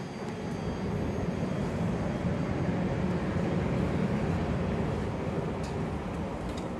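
JR E231 series 0 commuter train running, with the rumble of wheels on rail and the drivetrain. The noise grows louder over the first couple of seconds, then holds steady.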